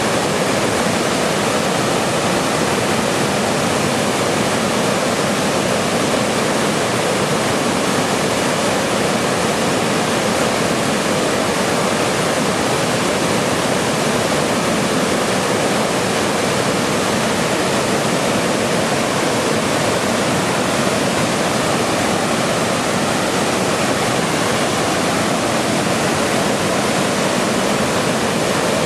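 Continuous white noise: an even, unchanging hiss spread across low and high pitches, with no breaks.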